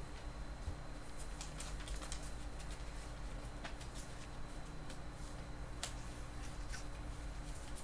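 Faint, scattered clicks and rustles of puppies' paws and bodies shifting on newspaper, over a steady low hum.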